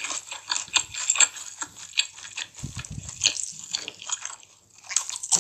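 Close-miked wet eating sounds: rapid smacking, squelching and clicking of a mouth chewing soft, moist food.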